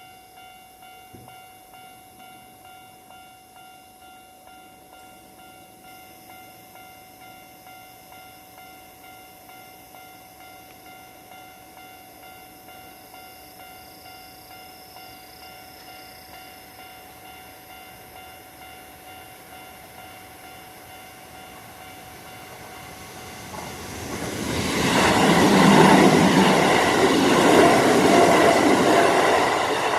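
Japanese level-crossing warning bell ringing steadily with a regular repeating clang. Near the end a Kintetsu electric train runs loudly through the crossing, its passing noise building up and then dropping off sharply.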